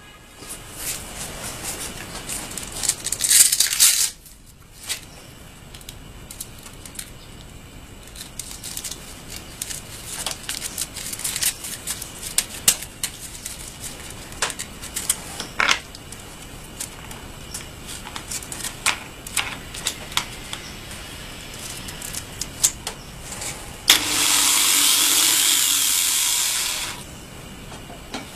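Electric angle grinder fitted with a sanding disc, clamped in a vise: a loud rushing noise cuts off about four seconds in, then the disc and grinder are handled with scattered clicks and rattles. Near the end the grinder runs steadily for about three seconds, then stops.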